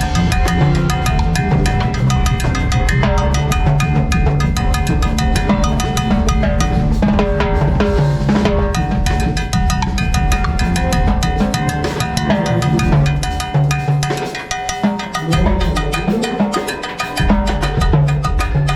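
A live band playing with the drum kit to the fore: snare, bass drum and cymbals driving a steady rhythm over bass and other pitched instruments. The low bass drops out for a couple of seconds near the end.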